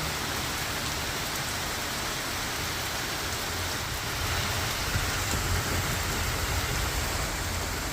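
Heavy rain falling steadily, a dense even hiss that grows a little louder and fuller about four seconds in.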